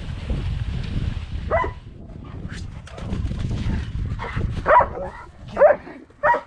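Wind rushing over the microphone during a dog-sled run, then dogs yipping and barking in short, high calls, several in quick succession in the second half while they play in snow.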